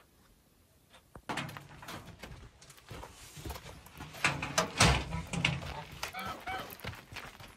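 A door or gate being opened with a run of knocks and rattles, loudest about halfway through. A few short animal calls sound in the middle.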